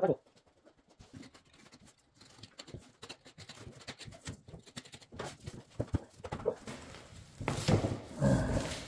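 Utility knife scratching and cutting through old burlap and dry straw stuffing in a barber chair backrest, a run of small crackling scratches and clicks. Louder rustling and crunching near the end as the burlap and stuffing are pulled and handled.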